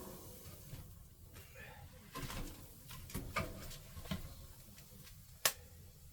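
Scattered sharp knocks and clicks, about five of them, the sharpest about five and a half seconds in.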